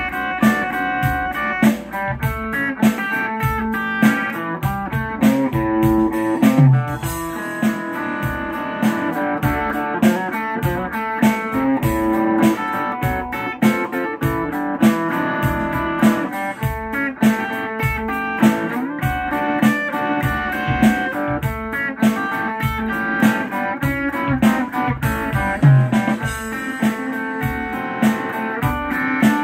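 Telecaster-style electric guitar, fingerpicked, playing a blues tune: bass notes and chords with a steady, even rhythm.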